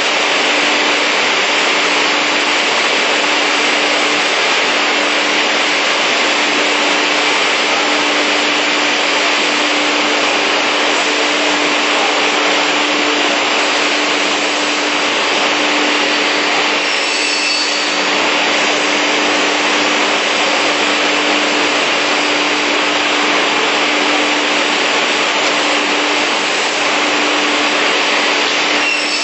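Beam saw running: a steady, loud machine noise with a constant low hum. The sound shifts briefly about 17 seconds in.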